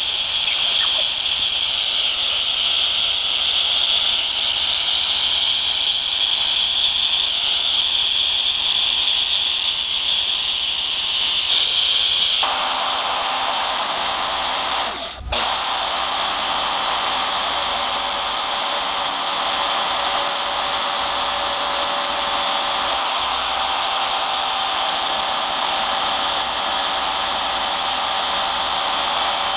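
Handheld gas torch hissing steadily as its flame plays on an old steel file. About twelve seconds in the sound changes to a metal-cutting bandsaw running steadily as it cuts the knife's outline out of the file, with a brief dip about fifteen seconds in.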